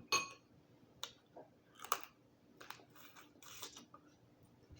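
Boiled Dungeness crab shell being cracked and torn apart while eating: a string of short sharp cracks and crunches, roughly one a second.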